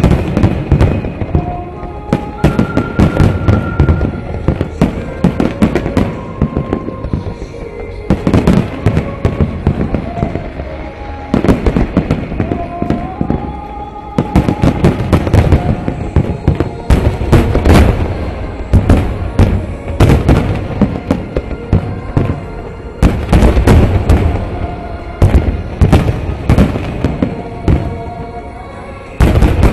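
Fireworks shells bursting again and again, in dense volleys of bangs that come in waves, the heaviest about eight, seventeen, twenty-three and twenty-nine seconds in. Music plays along under the bangs.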